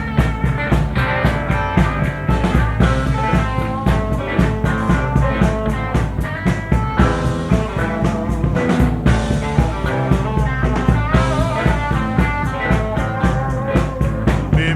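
Blues-rock band playing live: electric guitar over bass and a steady drum beat, with no singing.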